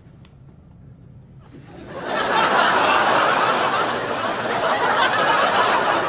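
Audience laughing: quiet at first, then laughter swells about a second and a half in and stays loud, easing off near the end.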